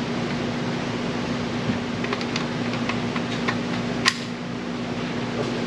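Steady hum of ventilation fans, with a few light metallic clicks and one sharper click about four seconds in from an AK-pattern pistol and its magazine being handled.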